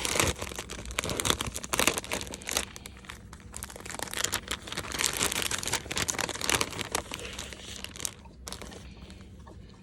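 Packaging crinkling and rustling as a small doll outfit is unwrapped by hand. It is busy for most of the time and dies down near the end.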